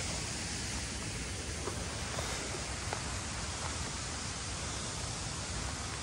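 Steady rushing of a river waterfall, an even wash of water noise, with a few faint clicks.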